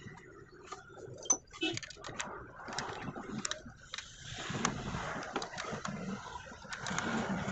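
Spanner clinking on the starter motor's terminal nut while the battery cable is fastened: scattered light metal clicks, with a low steady noise building up in the second half.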